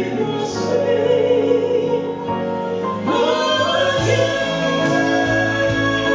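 A man and a woman singing a gospel duet into microphones, holding long notes in harmony, with a shift to new notes about three seconds in.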